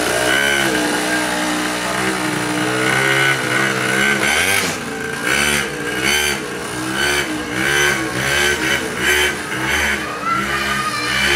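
Kids' mini quad's small engine revving up and down as the throttle is opened and eased off. Fairly even at first, then rising and falling in quick swells, about one or two a second, from about halfway.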